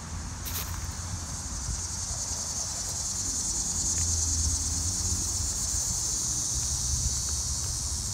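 Steady high-pitched insect chorus, swelling slightly a few seconds in, over a low rumble underneath.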